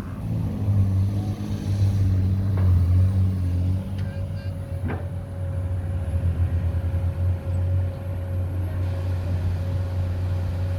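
Engine of heavy construction machinery running steadily, a low pulsing drone that rises and falls slightly, with a steady higher whine added about halfway through.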